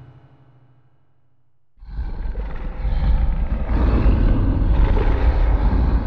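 A low sound dies away to a very quiet stretch. About two seconds in, a loud, low noise with no clear pitch starts abruptly and holds steady.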